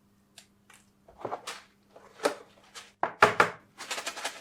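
A SteelSeries Arctis 7 headset and its packaging being handled: a series of short rustles and clicks, with a louder knock about three seconds in.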